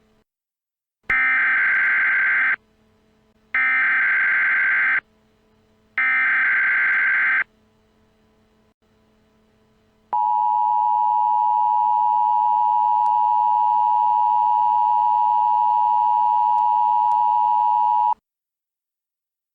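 Emergency Alert System signal: three short data-header bursts with a harsh buzzing sound, then the dual-tone attention signal (853 and 960 Hz) held steady for about eight seconds before cutting off.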